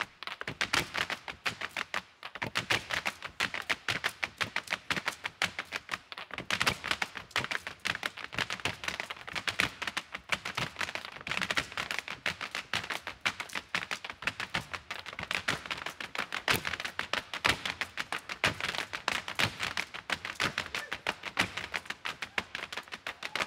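Irish step dancers' hard shoes striking the stage floor in a fast, rhythmic run of taps and clicks, several dancers together, with no music playing.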